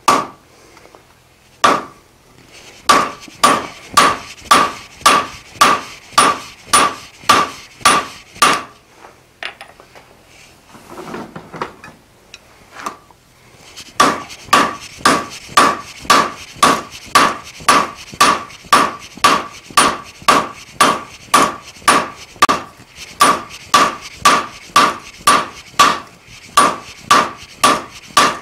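Blacksmith's hammer striking a red-hot mild steel bar over the horn of an anvil to draw it out, steady blows about two a second, each with a short ring of the anvil. The hammering stops for about five seconds in the middle, then picks up again.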